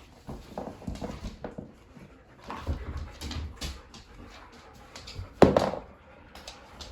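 Pet dogs whining and moving about, with scattered short clicks and rustles and one loud, short sound about five and a half seconds in.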